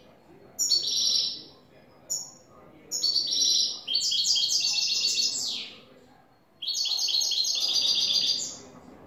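Caged European goldfinch singing: four phrases of rapid, repeated high twittering notes, the longest lasting about three seconds, with short pauses between them.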